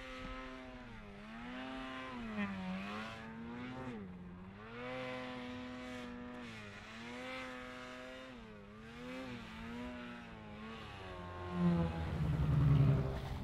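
Snowmobile engine revving up and down over and over as the sled carves through deep powder, its pitch rising and falling every second or two. Near the end a sled comes close and gets louder and lower.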